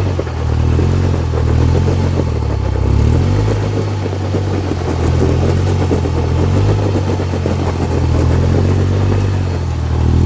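Polaris Ranger 1500 side-by-side's three-cylinder engine running with the vehicle under way, its pitch rising and falling a little.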